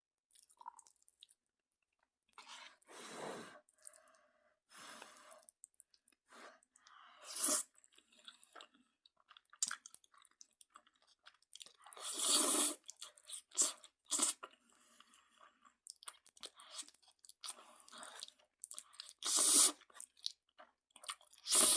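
A person chewing a mouthful of Jjapaghetti black-bean instant noodles with buldak hot sauce: irregular wet chewing and mouth noises, with a few louder bursts.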